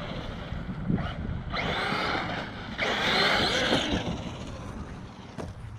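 Traxxas electric RC car accelerating and spinning its tyres in muddy dirt, in two bursts of about a second each around the middle.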